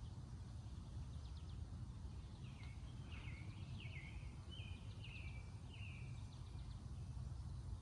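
A songbird sings a short series of about six falling phrases from about two and a half seconds in to about six seconds. Under it runs a steady low outdoor rumble.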